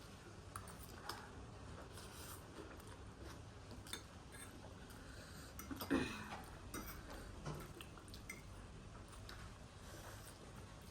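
Faint eating sounds: utensils clicking against a bowl and chewing of spicy instant noodles, with one louder short sound about six seconds in.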